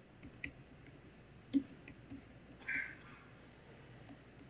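Laptop keyboard typing: a few scattered, faint key clicks, the sharpest about one and a half seconds in, with a short noisier sound a little before three seconds in.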